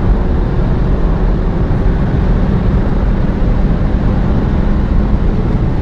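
Turbocharged Honda car cruising at steady speed: an even, low engine and road drone heard from inside the cabin, with a faint steady hum in it.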